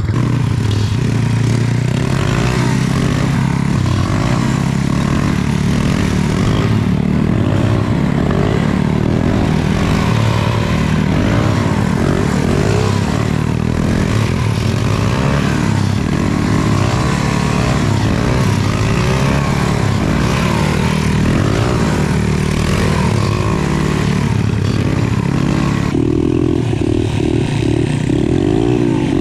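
Pit bike engines revving up and down while riding, the pitch rising and falling again and again, with the sound changing abruptly near the end.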